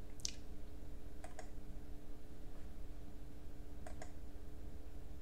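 Computer mouse button clicks: one click near the start, then two quick double clicks, a little over a second in and about four seconds in, over a steady low hum.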